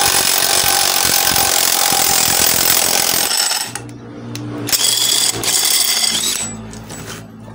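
Cordless impact wrench hammering through a 38 mm socket on a truck gearbox shaft to drive the gearbox bearing off. It runs for about three seconds, stops, then runs again for about two seconds.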